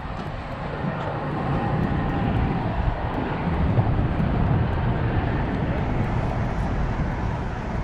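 Steady low rumble of road traffic crossing a nearby bridge, swelling a little a few seconds in.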